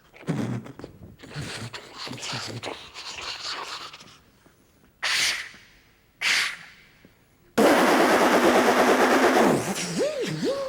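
A man making action-film sound effects with his mouth. First come rumbling noises, then two single sharp blasts about a second apart. Then a loud, long burst of rapid machine-gun fire, ending in a wavering, falling whistle-like glide.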